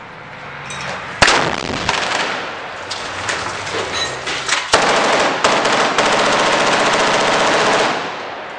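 A rocket-propelled grenade launcher fires with one sharp blast about a second in. Scattered gunshots follow, then about three seconds of continuous rapid automatic gunfire from around the middle.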